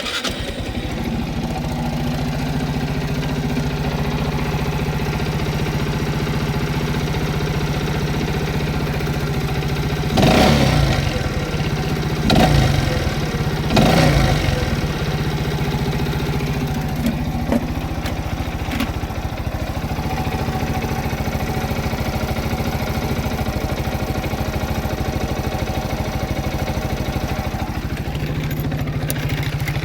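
Viper Active moped's single-cylinder four-stroke engine idling steadily, blipped up and back down three times, about ten, twelve and fourteen seconds in. It is running after the repair of a knock, which was traced to crumbled rubber dampers in the clutch basket that have now been replaced.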